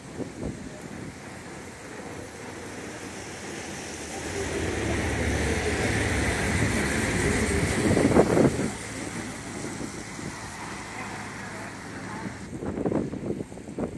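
Lady Dive amphibious tour bus driving past: its engine hum grows louder as it approaches, is loudest as it goes by about halfway through, then fades as it pulls away.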